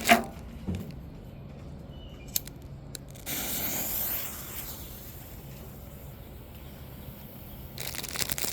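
A few light clicks, then about three seconds in a sudden hiss as a small clay color smoke ball catches and starts venting smoke. The hiss is strongest for about a second, then goes on steady and faint and stops near the end.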